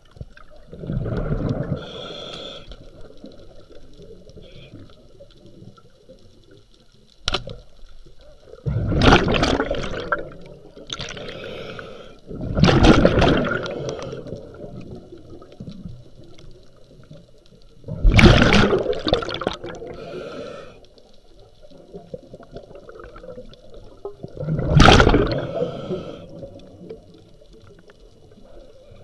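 Underwater camera audio of a diver's breathing bubbles: a rush of bubbles every few seconds, each lasting a second or two, over a low hum, with a single sharp click about seven seconds in.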